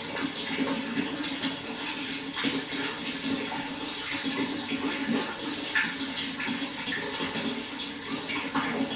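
Water flowing steadily, a continuous rushing splash with small spatters throughout.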